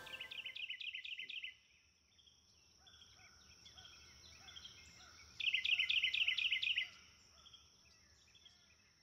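A songbird singing a phrase of rapid repeated chirps, twice, the second phrase about five seconds after the first, with fainter calls of other birds between them.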